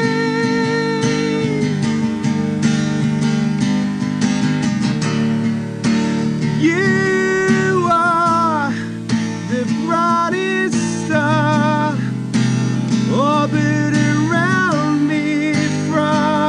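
A song played on acoustic guitar, strummed, with a voice singing over it in held, wavering notes through the middle and second half.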